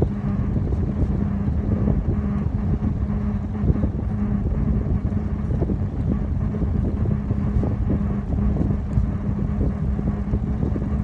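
Wind buffeting the microphone and tyre rolling noise from a bicycle riding along an asphalt road, with a steady low hum underneath.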